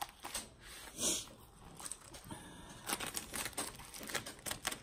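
Padded plastic mailer being slit with a small blade and pulled open: one sharp rip about a second in, then scattered crinkles and clicks of the plastic as it is worked apart.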